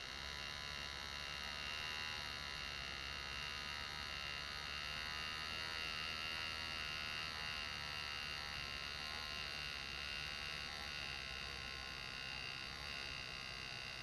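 Lindsay PalmControl air graver buzzing steadily as its pneumatic handpiece drives the graver point, cutting shading into an engraved metal plate.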